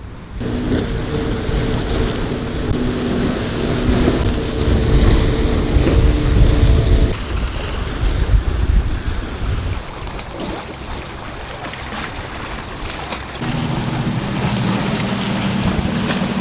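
Wind buffeting the microphone over choppy sea water, with a steady motorboat engine drone that cuts off about halfway through and a lower engine drone starting again a few seconds before the end as a small motorboat passes.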